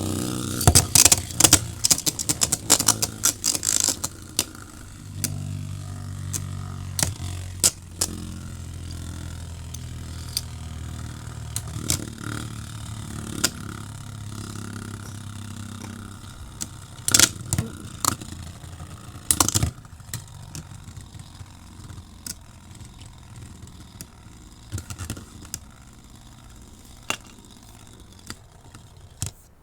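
Beyblade X spinning tops battling in a plastic stadium: a rapid flurry of sharp clacks as they collide, then a steady low whir as they spin. A few hard hits come about two-thirds of the way through, and the sound then dies away.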